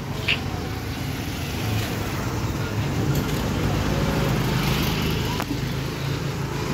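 A motor vehicle engine hums steadily through street traffic noise, with a brief hiss about a third of a second in.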